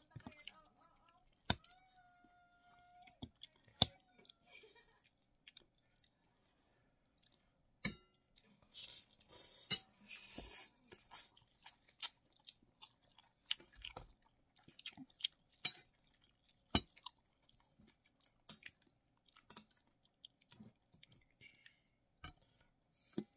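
Close-miked mouth sounds of a person eating Indomie instant noodles: wet chewing and slurping of noodle strands, with a busier stretch of slurping about nine to eleven seconds in. Sharp clicks of a metal fork against the teeth and plate come at irregular intervals.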